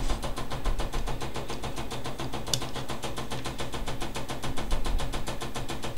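Homemade 12-volt motor rig spinning steadily, running with a rapid, even pulsing rhythm. A single sharp click about two and a half seconds in.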